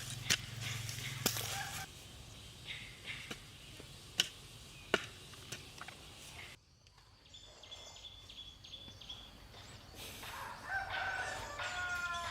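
A few sharp knocks of chopping or tool work in the first five seconds, then, after an abrupt cut, domestic fowl calling with repeated pitched calls near the end.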